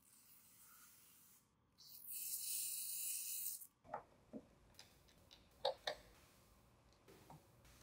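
Protective plastic film being peeled off a monitor stand's base: a steady high hiss for about two seconds that cuts off sharply. Then a few light plastic clicks and knocks as the stand's arm is fitted to the monitor's back.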